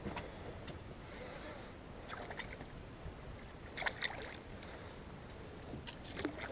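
A fishing lure splashing down on calm water after a cast, about four seconds in, among a few faint clicks.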